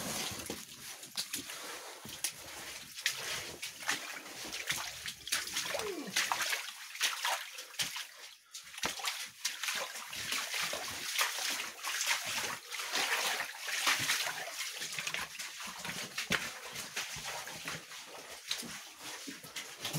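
Wading footsteps splashing and sloshing through shallow water on a mine tunnel floor, an irregular run of splashes that goes on throughout.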